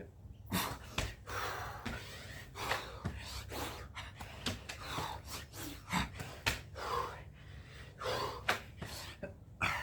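A person breathing hard and fast from exertion, with repeated gasping, panting breaths about one to two a second.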